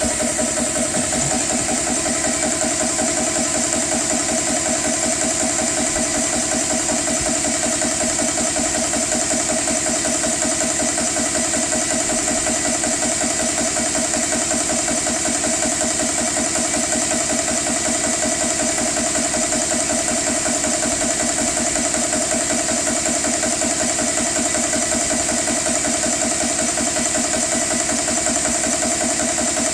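GX CS3 portable 4500 psi PCP high-pressure air compressor running steadily under load while charging an air rifle, with a fast, even pumping pulse over a steady high hiss.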